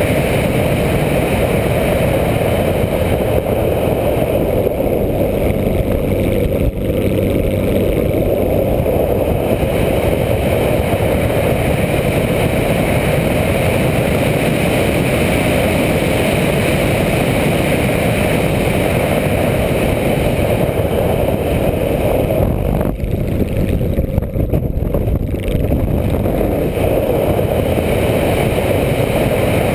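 Onboard sound of a radio-controlled model airplane in flight: a steady rush of air over the camera together with the running motor and propeller, easing briefly about three quarters of the way in.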